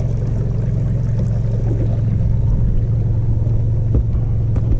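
Boat's outboard motor running steadily at low speed, a continuous low hum and rumble, with a couple of light knocks near the end.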